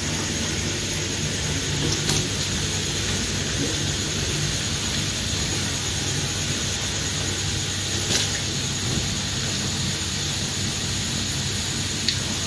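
Kuih siput dough pieces deep-frying in hot oil in a wok: a steady, even sizzle with a few faint clicks now and then.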